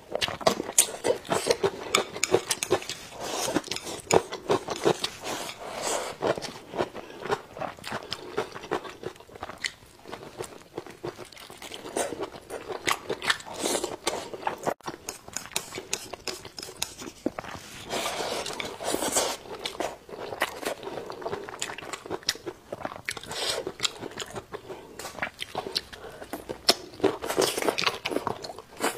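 Close-miked chewing of fried pig intestines, vegetables and rice: continuous wet smacking and crunching bites with irregular clicks, coming in louder clusters as each new mouthful is taken.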